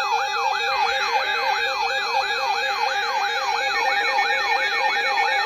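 Electronic alarm siren sounding continuously, several tones layered: a fast falling sweep repeating about three to four times a second over a steady tone and a low two-note warble.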